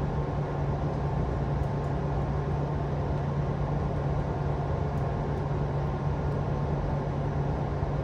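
Steady low mechanical hum of air conditioning, with an even hiss over it.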